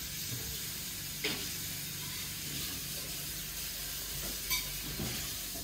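Food sizzling as it fries in a pan, a steady hiss, with a light tap about a second in and another near the end.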